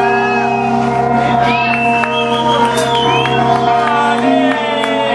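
Live band music with an electric guitar: sustained, droning chords and tones, with high notes sliding up and down above them.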